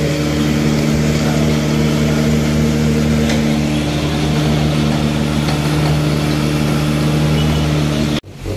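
Steady, low mechanical drone of a running engine or motor, holding one even pitch, which cuts off abruptly near the end.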